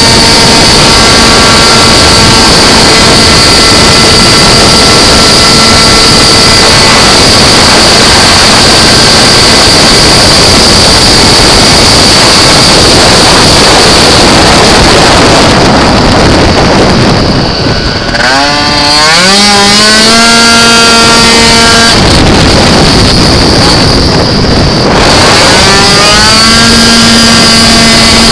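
Malossi 77cc two-stroke engine of a Piaggio Zip racing scooter running flat out, heard on board under heavy wind noise. Twice in the second half its pitch falls away as the throttle is closed for a corner, then climbs again as it accelerates out.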